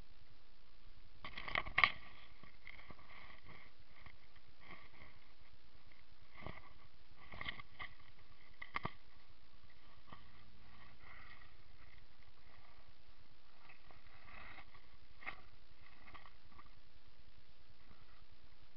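Leaves and twigs brushing and rustling against the camera as it is pushed through leafy undergrowth, with a few sharp clicks and knocks, the loudest a pair about two seconds in, over steady microphone hiss.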